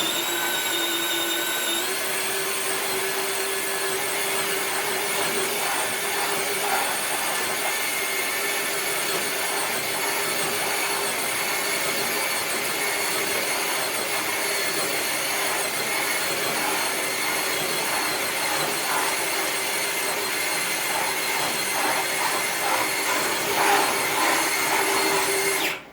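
Traxxas TRX-4 Bronco RC crawler's electric motor and gearbox whining at a steady pitch under load as it drags a brick-weighted sled across concrete, with a grinding scrape. The sound cuts off suddenly near the end when the pull finishes.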